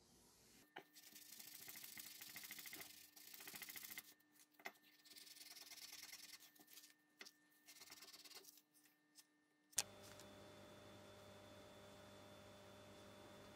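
Faint rustle and rub of gloved hands on a paper towel as small metal pistol parts are handled, with a few light clicks of parts being picked up and set down. A sharp click comes a little under ten seconds in, and after it only a steady low hum remains.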